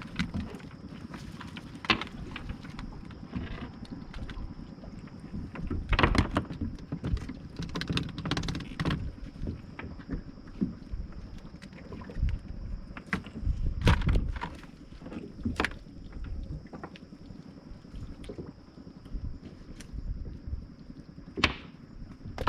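Irregular knocks and clatter of a bottom gill net being hauled aboard a small fishing boat, over a low steady rumble. The loudest knocks come about 6 and 14 seconds in.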